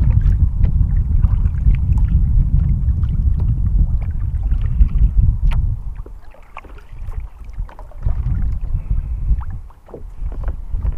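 Wind noise on the microphone over the strokes of a double-bladed kayak paddle dipping and splashing in the water, with scattered small drips and ticks. The wind is heaviest for the first six seconds, then eases and comes back in gusts.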